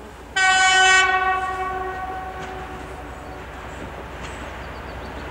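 TEP70BS diesel locomotive sounding its horn in one short blast about half a second in, the note ringing on and fading over the next two seconds. The approaching train's rumble then grows slowly louder.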